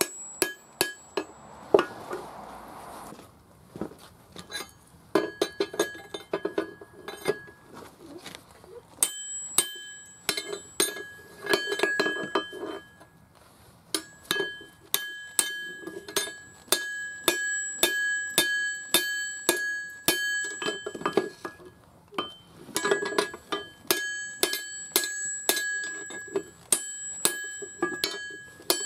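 Hand-hammer blows on a hot steel axe head over an anvil, about two blows a second, each strike ringing. The hammering breaks off twice briefly.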